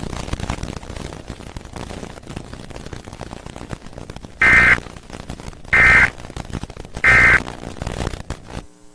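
Emergency Alert System end-of-message data tones: three short, loud bursts of buzzing digital tones, about a second and a half apart, marking the end of the alert. Before them there is a few seconds of steady hiss.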